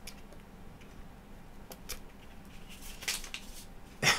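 Powder sachet being shaken and tapped over a plastic shaker cup to empty the last of the powder: a few faint ticks, a brief rustle about three seconds in, and a sharper knock near the end.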